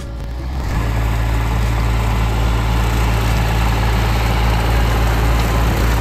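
John Deere 750 compact diesel tractor running with its rotary mower, cutting weeds. The engine sound comes in less than a second in and then runs steady and loud.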